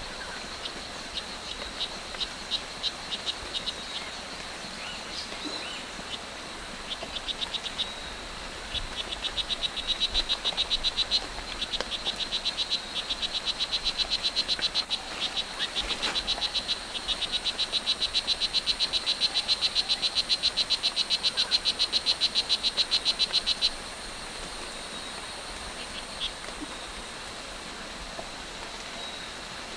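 Strawberry poison dart frog (Oophaga pumilio) calling: a rapid, even train of short high buzzing chirps, delivered in bouts that lengthen and grow louder, then stop abruptly near the end.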